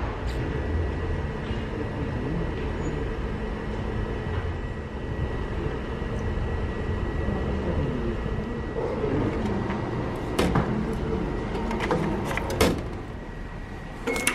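Metro station ambience: a steady low rumble and hum, with a few sharp clicks and knocks in the second half from handling the ticket machine and turnstile.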